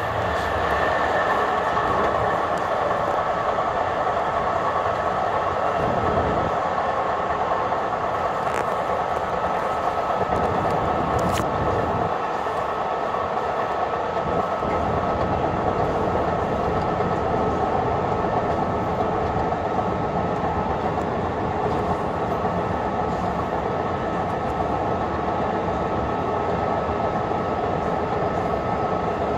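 Long Island Rail Road M3 electric multiple-unit car running at speed, heard from inside the car: a steady rumble of wheels on rail under a steady whine.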